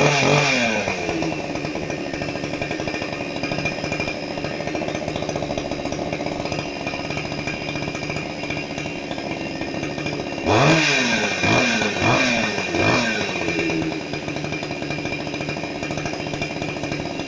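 Ruris 367 two-stroke chainsaw idling after a cold start in freezing weather. It falls back from a rev at the very start, then runs at a steady idle, then revs quickly about four times starting about ten seconds in, dropping back to idle after each.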